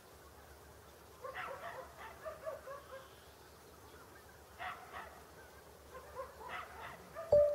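Flock of wild geese calling in flight: short, yelping honks in loose bursts, about a second in, again near the middle, and once more toward the end. Near the end a sudden loud knock with a short steady tone after it is louder than the calls.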